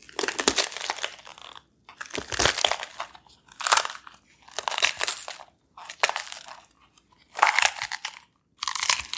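Crunchy chewing sound effect: about eight short bouts of crunching bites with brief pauses between them, standing for a thorny devil eating ants.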